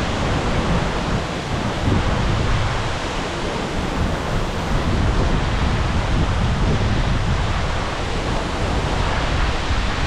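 Steady rushing roar of a waterfall: an even, unbroken noise with a heavy low rumble.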